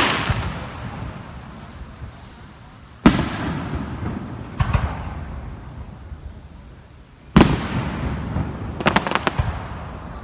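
Aerial firework shells bursting: two loud booms about four seconds apart, each rumbling away slowly, with a smaller burst after the first and a quick run of crackling reports near the end.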